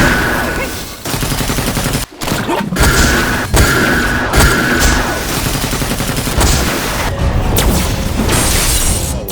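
Anime fight sound effects: a dense, rapid barrage of hits and booms with a short break about two seconds in.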